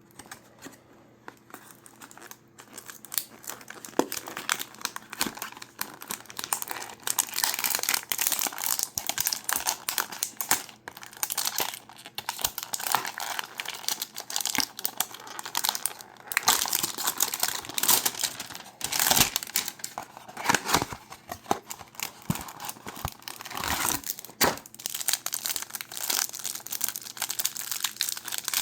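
Trading-card hanger box packaging being torn open and crinkled, a dense irregular crackling and tearing with louder flurries. It starts about two seconds in.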